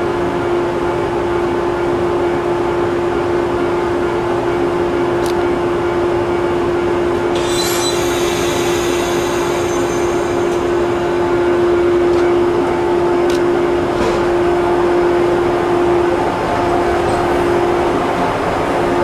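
Electric train at a station with a steady hum from its equipment over a constant rumbling noise. A hiss lasting about three seconds starts about seven seconds in, and a few short sharp clicks come through.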